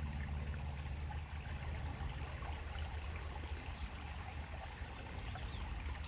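Shallow creek water flowing steadily, with a steady low rumble underneath.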